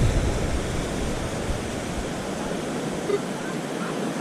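Ocean surf washing on the beach, with wind buffeting the microphone as a low rumble that eases about halfway through.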